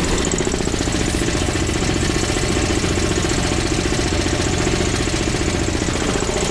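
An engine just started, running steadily at idle with an even, rapid pulse.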